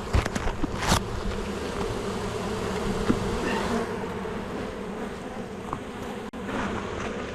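Honeybees buzzing steadily in an opened hive during inspection, a continuous low hum. A few sharp knocks in the first second or so.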